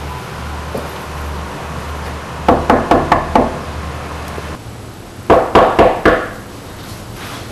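Knuckles knocking on a front door: two rounds of about five quick knocks, the second round a couple of seconds after the first. A low steady hum sits under the first round and stops before the second.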